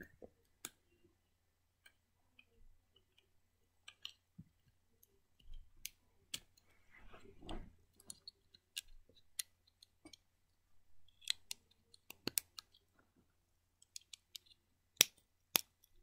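Plastic Lego bricks clicking as they are handled and snapped together, sharp irregular clicks with a few louder snaps near the end. A brief rustle of handling comes about seven seconds in.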